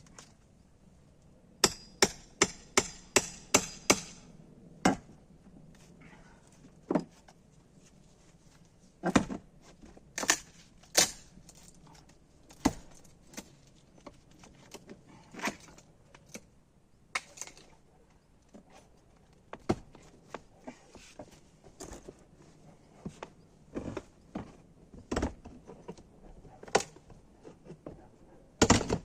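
Knocking on wood, typical of renovation work with a hammer: a quick run of about seven blows about two seconds in, then scattered single knocks and taps.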